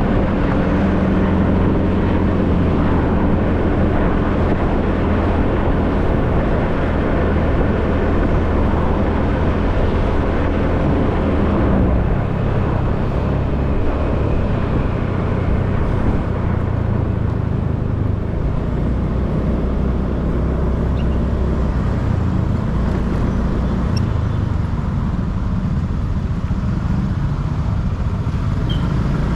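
Motorcycle engine running under way, with wind and road noise. About halfway through, the engine note drops lower and the wind noise eases.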